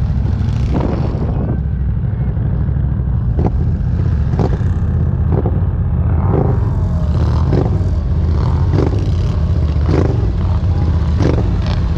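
Off-road ATV engine running steadily under load in deep mud, with short sharp sounds every second or so over the drone.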